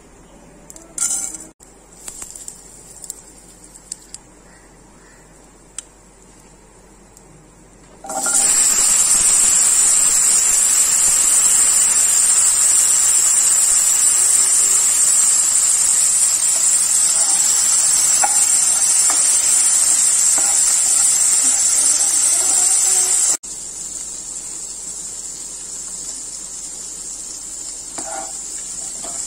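Hot oil in a pan crackling with mustard seeds and dried red chillies, a few scattered pops, then a loud steady sizzle starting about eight seconds in as boiled chickpeas fry. The sizzle cuts off suddenly near the end and a quieter sizzle follows, with a few light clicks of stirring.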